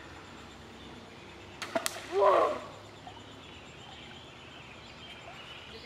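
A lit waterproof firecracker dropping into a creek with a sharp plop about a second and a half in, followed by a brief vocal exclamation, while the firecracker sinks before exploding.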